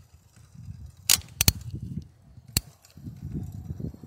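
Bicycle rolling along a paved trail: a low rumble with sharp clicks and knocks about a second in, twice in quick succession around one and a half seconds, and once more near two and a half seconds.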